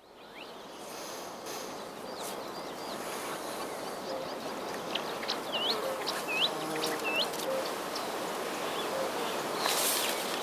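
Outdoor riverbank ambience: a steady background hiss with birds calling, including three quick hooked chirps about halfway through and a few short lower calls. A brief rustling burst comes near the end.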